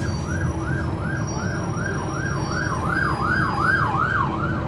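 Emergency-vehicle siren in a fast yelp, its pitch sweeping up and down about two or three times a second, getting louder toward the end and then fading. It is heard from aboard a transit bus, over the steady low running of the bus's Cummins ISL9 diesel engine.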